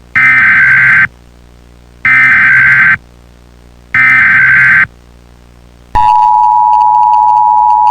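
Emergency Alert System SAME header: three loud, one-second data bursts of warbling tones about a second apart. About six seconds in, the steady two-tone EAS attention signal begins, meaning an emergency alert is being broadcast.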